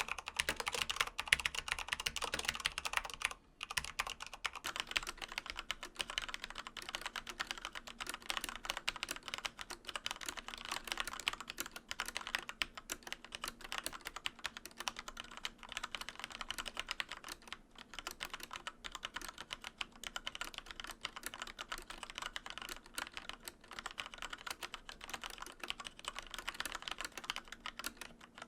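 Fast, continuous typing on a mechanical keyboard, one of a series of mechanical switch sound tests, with a short pause about three and a half seconds in.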